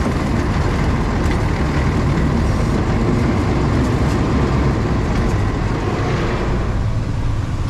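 Vehicle running and driving, a steady low rumble of engine and ride noise heard from inside the cab.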